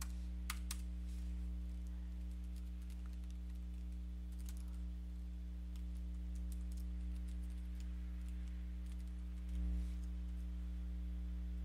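Computer keyboard typing: a few faint, scattered keystrokes over a steady low electrical hum.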